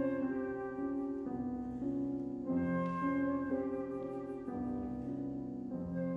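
Flute and grand piano playing slow classical music together, with sustained piano chords that change every second or so under the flute line.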